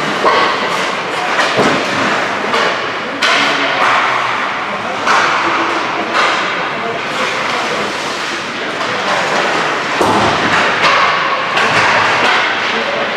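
Ice hockey play on a rink: skate blades scraping the ice under a steady hiss, with repeated sharp knocks and thuds of sticks, pucks and the boards.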